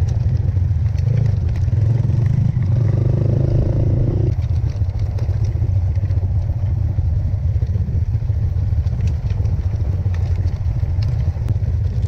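Trail motorcycle running while being ridden over rough ground: a steady low rumble with scattered rattles. A brief higher note between about three and four seconds in cuts off suddenly.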